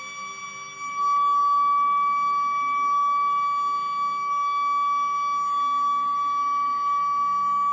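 A steady high-pitched tone held without a break, stepping up in loudness about a second in. It is played as the unexplained 'ping' reported from the Arctic sea floor in 2016.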